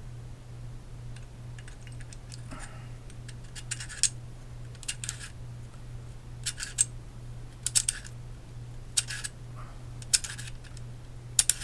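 Short metallic clicks and scrapes, about once a second, as the provided wrench is fitted and turned on the folding stock adapter's nut on an AR-15 to tighten it. A steady low electrical hum runs underneath.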